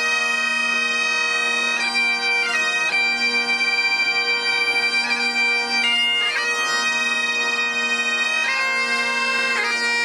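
Bagpipes playing a slow melody of held notes over a steady, unbroken drone, starting abruptly.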